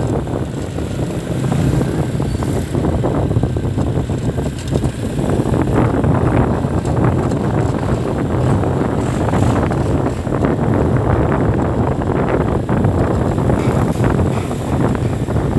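Steady vehicle engine and road noise, with wind buffeting the microphone.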